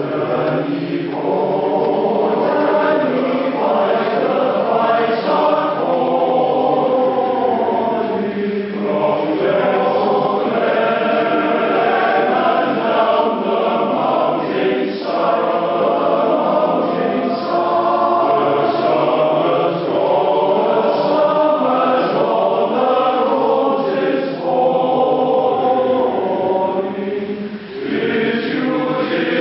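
A choir singing together in long sustained phrases, with short breaks between phrases.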